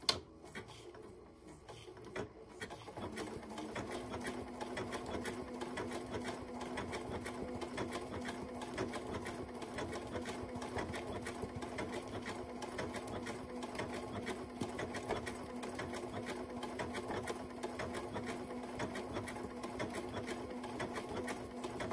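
Domestic sewing machine sewing a decorative back-and-forth stitch along a quilt binding's edge: a steady motor hum with rapid needle strokes. It builds up over the first few seconds, then runs at an even speed.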